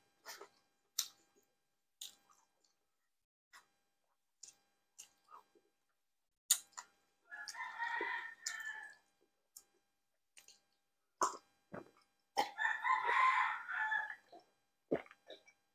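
A rooster crowing twice, each crow lasting about one and a half to two seconds, about seven and twelve seconds in. Scattered short clicks and taps come in between.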